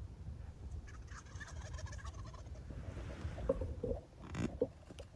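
Wild turkey gobbling about a second in, a rapid rattling call lasting over a second, followed near the end by a few short, lower sounds.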